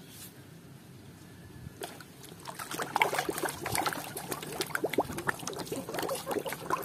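Water sloshing and splashing in a plastic basin as a hand scrubs a toy underwater, starting about two and a half seconds in after a quiet opening.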